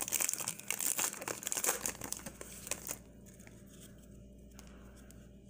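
Plastic wrapper of a baseball card pack crinkling as it is torn open, for about three seconds, then faint rustling as the cards inside are handled.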